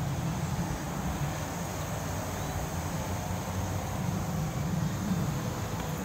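Steady chorus of insects in a late-summer field, a constant high chirring, over a low, fluttering rumble.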